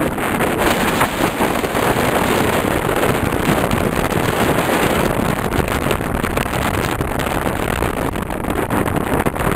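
Steady rush of wind over the microphone mixed with road and engine noise from a moving vehicle.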